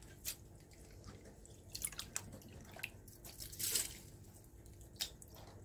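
Handfuls of soaked, wet pearl millet and sorghum grains dropped by hand into the steel drum of a tabletop wet grinder: faint, scattered wet clicks and splats.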